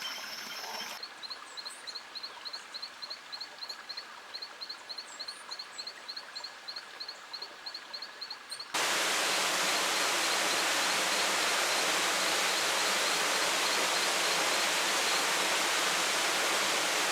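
A cricket chirping rhythmically, a short high chirp about four times a second. About two-thirds of the way through, a loud steady hiss starts abruptly and all but covers the chirping.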